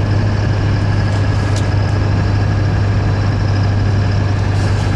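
Duramax 6.6 L V8 turbodiesel pulling under added throttle with a freshly installed S366 turbocharger: a steady low engine and road drone with a faint, thin high turbo whistle over it.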